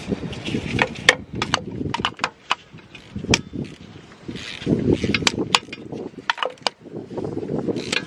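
Hand tools clinking and knocking against metal while a car's starter is being bolted in from underneath: a dozen or so sharp, irregular clinks over a low rumble of handling noise.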